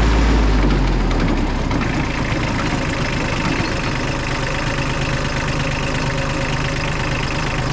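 Kubota Bulltra B1-16 compact tractor's diesel engine running steadily, with a heavier low rumble in the first second or so that eases off.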